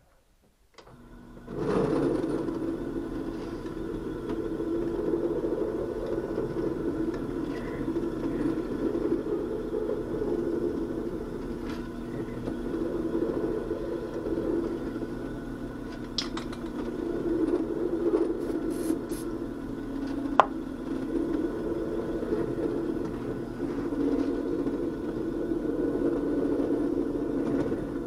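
Benchtop drill press motor starting up about a second in and then running steadily, with a few short light clicks along the way.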